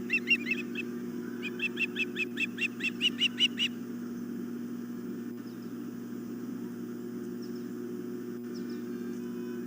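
Ospreys calling: two quick runs of short, high, down-slurred whistled chirps, about five a second, the second running from about a second and a half in to nearly four seconds in. Under them, a steady low electrical hum.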